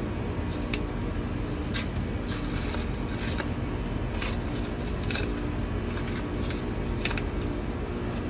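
Masking tape being peeled and crumpled off an AN hose fitting: short papery rips and crinkles every second or so, over a steady low hum.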